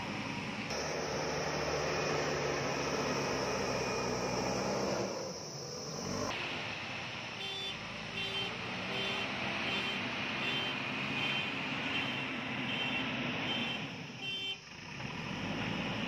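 JCB backhoe loader's diesel engine running under load as the machine pushes soil and manoeuvres, easing off briefly about five seconds in. From about seven seconds in it sounds a string of short, evenly spaced beeps, about one and a half a second, typical of its reversing alarm while it backs up.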